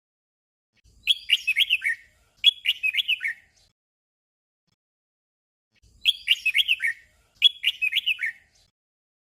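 Red-whiskered bulbul singing its short 'double' song: two quick phrases of falling whistled notes, a second or so apart. The pair is given twice.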